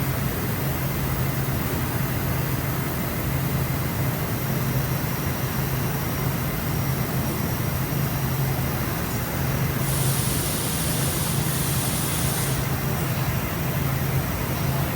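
Parpas Diamond 5-axis gantry machining center running with a steady low hum. A hiss starts about two-thirds of the way through and lasts about two and a half seconds.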